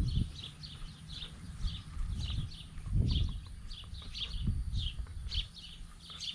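Birds chirping over and over outdoors, short high chirps about two or three a second. Low rumbles and bumps from the dog-mounted GoPro rubbing and jostling as the dog moves, strongest about three seconds in.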